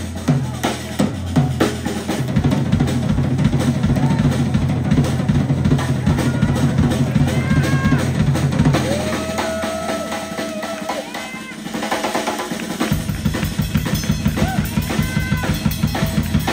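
Live blues-band music led by a Ludwig drum kit: fast, busy drumming with kick and snare over a bass line. About halfway through, the bass drops out for a few seconds while a few held, bending notes sound over the drums, then the full groove comes back in.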